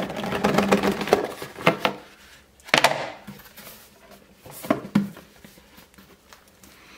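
Handling noise from unpacking a box: cardboard and plastic packaging rustling and scraping, then several knocks as a moulded packaging tray is set down on a wooden table, the loudest about three seconds in.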